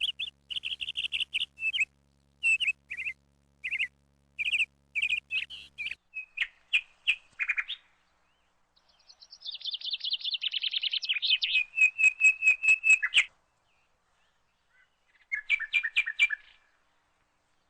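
Small bird chirping in short repeated bursts, with a fast run of trilled notes about halfway through and a last few chirps near the end.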